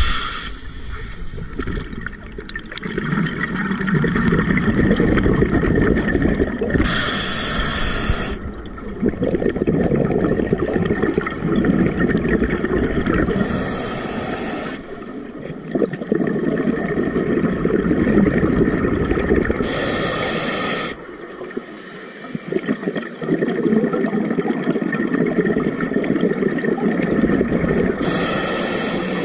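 Scuba diver breathing through a regulator underwater. A short hiss of inhalation comes roughly every six and a half seconds, and between the hisses there is a long, low bubbling rush of exhaled air.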